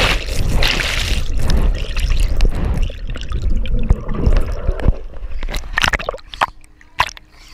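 Water rushing and bubbling around a submerged camera as a person plunges into a deep pool, heard muffled and rumbling, then sharp splashes as the camera reaches the surface in the last couple of seconds.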